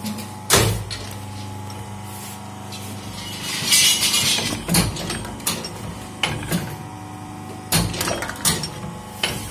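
Automatic four-cavity gallon-cap moulding machine running: a steady motor hum under repeated sharp metal clanks from the mould press. There is a short loud hiss about three and a half seconds in.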